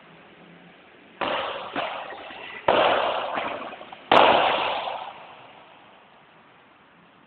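Padel ball hits: four sharp, hollow whacks of the paddle on the ball and the ball off the court, each ringing out in the hall's echo. The last is the loudest.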